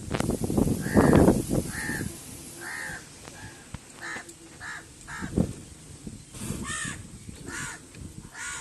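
A bird calling over and over in short, harsh calls, roughly one or two a second. A louder low rumble comes in about a second in.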